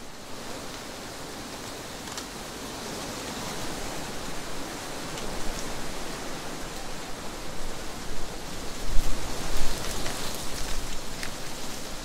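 Wind blowing through trees, a steady rush of rustling leaves that builds into a stronger gust about three-quarters of the way through, with a low rumble at its peak.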